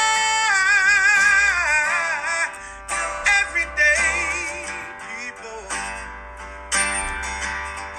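Outro music: a sung melody with vibrato over plucked guitar, getting quieter toward the end.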